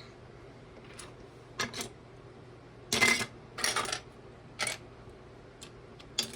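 Plastic building-brick pieces clicking and clattering as they are handled and picked through, in a string of short clatters, the two loudest about three seconds in.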